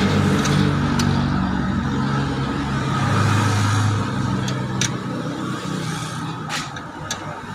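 A motor vehicle's engine running steadily, easing off after about four seconds, with a few sharp clicks of a hand tool on metal.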